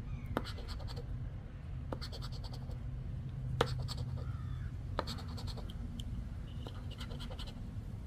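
A poker-chip-style scratcher scraping the coating off a scratch-off lottery ticket, in short runs of quick strokes with a few sharp clicks between them.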